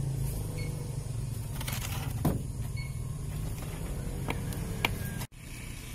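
Low, steady rumble of a motor vehicle, with a few light knocks and clicks of plastic containers and utensils being handled. The sound cuts out for a moment near the end.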